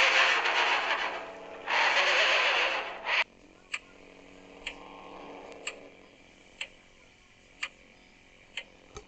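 A loud rushing hiss in two stretches cuts off suddenly about three seconds in. It is followed by faint, sharp ticks about once a second, like a clock ticking.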